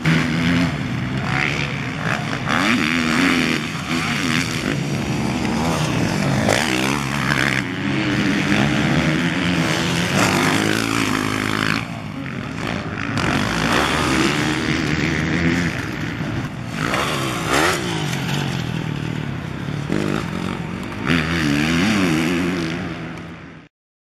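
Motocross bike engines racing, revving up and down in pitch. The sound fades out near the end.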